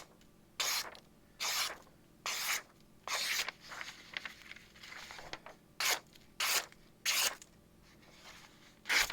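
Knife edge pushed across a sharpening stone in single strokes, each a short hissing rasp, about one a second, with a longer run of scraping in the middle. The blade is S35VN steel being freehand sharpened with straight push strokes.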